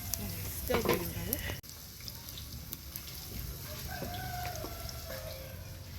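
A rooster crowing, one long drawn-out call in the second half, over the steady sizzle of onions frying in oil. A brief voice-like call comes about a second in.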